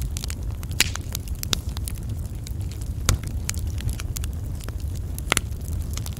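Wood fire burning, with irregular crackles and pops over a steady low rumble; a few pops stand out louder, about a second, three seconds and five seconds in.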